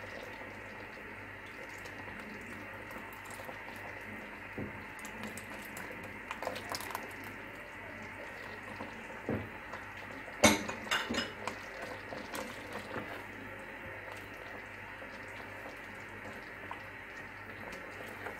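A pot of soup simmering with a steady bubbling hiss, while a silicone spatula stirs in beaten egg white, knocking and scraping against the pot. The loudest knocks come in a quick cluster a little past halfway.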